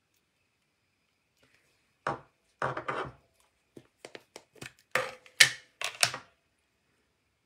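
Hard plastic clacks and knocks: a clear acrylic stamp block and an ink pad being handled and set down on a tabletop. A string of separate sharp knocks starts about two seconds in, with the loudest a little past the middle.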